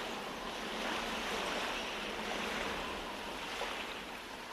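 Ocean surf sound, an even wash of waves closing out the song's recording, slowly fading out.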